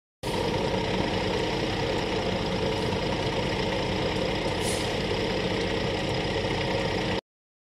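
Heavy diesel semi-truck engine running steadily at low revs with an even, fast firing pulse. It starts abruptly just after the start and cuts off sharply near the end.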